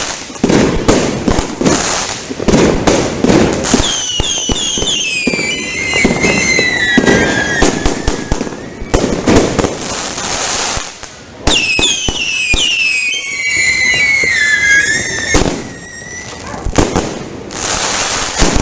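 Fireworks display going off: rapid bangs and crackling throughout, with two spells of many whistling shots falling in pitch, one about four seconds in and one about twelve seconds in.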